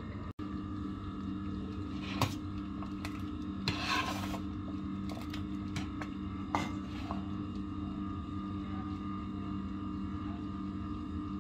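Metal spoon and ladle working thick rice pudding in a stainless steel pot: a couple of sharp clinks against the pan and a short scrape about four seconds in. A steady low hum runs underneath.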